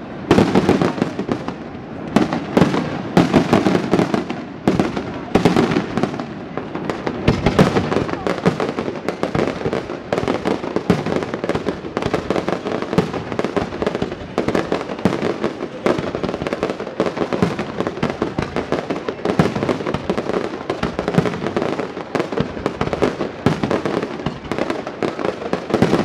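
Fireworks display: a dense, unbroken barrage of bangs and crackling bursts, several a second.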